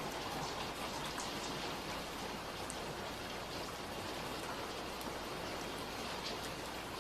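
Steady rain, an even hiss with scattered drops ticking.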